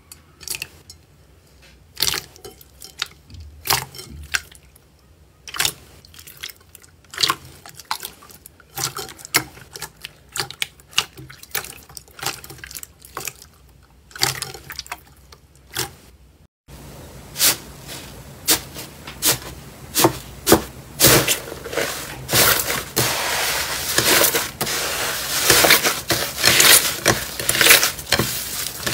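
Clear slime squeezed by hand under water in a bowl, making scattered wet pops and squelches. About 16 seconds in, a cut to thick purple slime being pressed and kneaded on a plate, with denser and louder sticky crackling.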